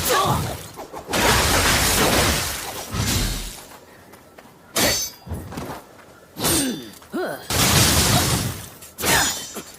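Kusarigama sound effects: a series of crashing, rattling impacts of the chain and blade. Two longer crashes come about a second in and again near the end, with sharp hits between them.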